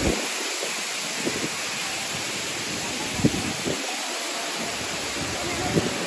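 Steady rush of Tumalog Falls pouring into its pool, with irregular low rumbles of wind on the microphone.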